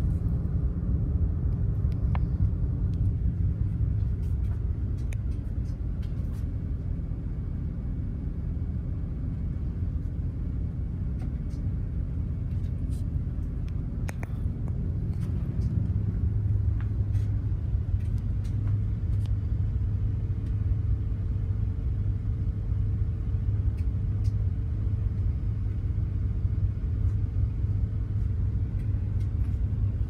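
Steady low rumble of a container ship's engine and machinery under way, heard in the wheelhouse. About halfway through the rumble shifts lower, and a faint steady hum joins it soon after.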